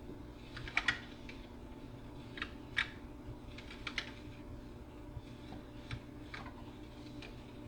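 An aquarium algae scraper blade scraping algae off the tank glass. It makes short, irregular scratching clicks, a few spread across the stretch, over a steady low hum.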